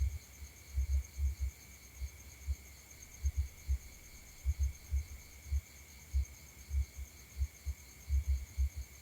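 Steady high chirring of insects, with irregular low rumbling thumps several times a second underneath.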